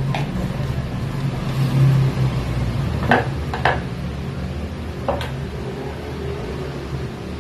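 A steady low hum, with a few light clicks and knocks of small objects being handled: two about three seconds in and two more about five seconds in.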